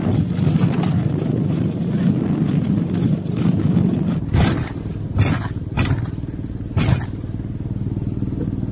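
Engine of a vehicle towing a loaded inflatable sled across snow and ice, running steadily. Four sharp knocks come between about four and seven seconds in.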